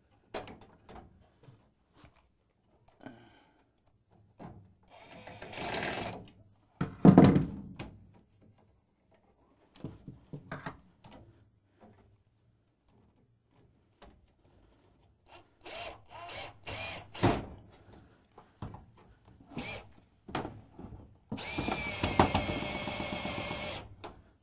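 Cordless drill driving screws to fasten a sauna's metal heater cover, running in short bursts and one longer steady run near the end. A loud thump about seven seconds in, with light knocks and clicks of handling between.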